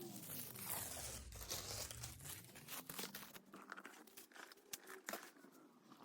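Paper packaging crinkling and rustling as it is handled, in irregular crackles that are busiest in the first half and thin out to scattered rustles after about three seconds.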